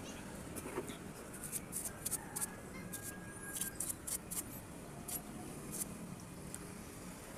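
A small paintbrush's bristles brushing dust and rust off a blender's push-button switch assembly: a quick run of short, scratchy strokes, most of them in the middle seconds.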